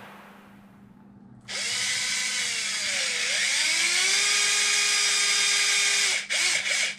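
Small cordless power driver with a hex bit turning a screw in an RC truck's chassis. Its motor whine starts about a second and a half in and runs steadily, the pitch dipping once under load and recovering. It ends in a few short trigger blips near the end.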